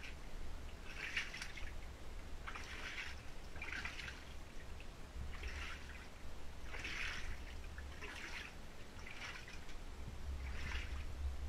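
Shallow floodwater sloshing and splashing in a regular rhythm, about once a second, as someone moves through it in wellies, over a steady low rumble.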